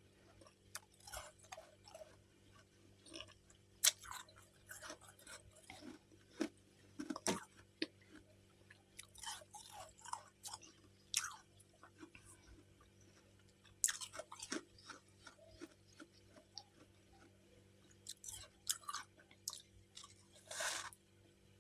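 A person biting and chewing chunks of freezer frost close to the microphone: irregular crisp crunches, coming in quick clusters with short pauses between.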